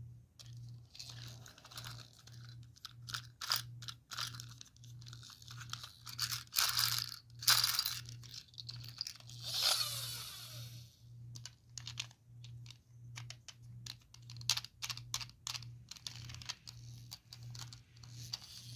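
Small plastic toy vehicles being handled and pushed across a carpet: clicks and knocks of plastic, with short whirs of push-and-go friction motors. About ten seconds in, one whir winds down in a falling whine.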